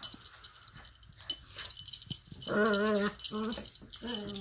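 Dogs play-fighting: three wavering growls, the first about halfway through and the longest and loudest, with light clicks and jingles of claws and collar tags throughout.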